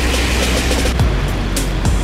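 Background music with a beat, over a steady rushing noise like a car driving on a wet road.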